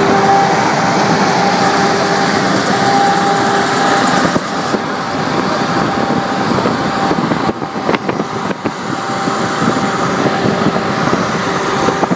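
Car driving at highway speed: steady road and wind noise, with a steady hum that fades about four seconds in.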